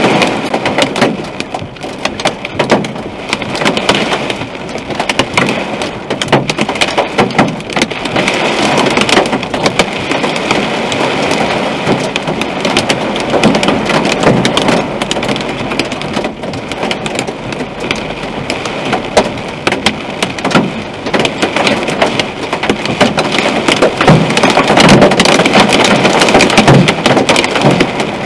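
Hail and heavy rain pelting a moving car's roof and windshield: a dense, constant clatter of hits, growing louder near the end.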